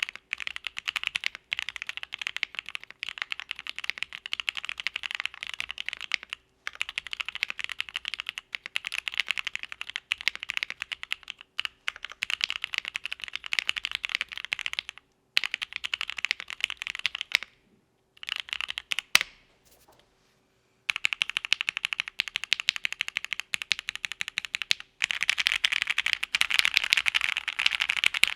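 Fast typing on a mechanical keyboard with Gateron CJ linear switches, lubed, under GMK keycaps on a polycarbonate plate. A continuous patter of keystrokes breaks off in a few short pauses and one longer lull with only scattered keystrokes around two-thirds of the way in. It picks up to its densest, loudest typing near the end.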